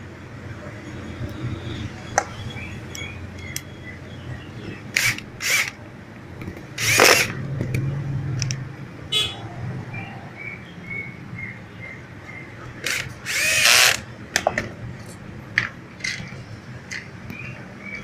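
Cordless drill-driver spinning in several short bursts, driving screws into a plastic motorcycle headlight housing; the longest run, about a second, comes two-thirds of the way through with the motor whine rising and falling. Small clicks of screws and parts being handled between the bursts.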